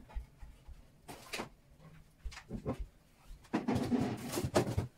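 Groceries being put away into fridge-freezer drawers: a few light knocks, then from about three and a half seconds in a busy stretch of rustling and clattering of packages and drawers.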